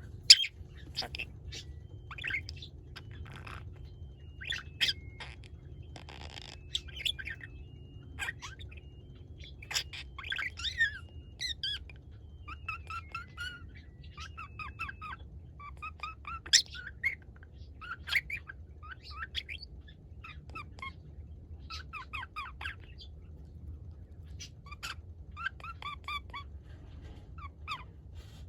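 Budgerigar chattering and warbling in many short bursts of chirps and squawks, with sharp clicks in between, over a steady low hum.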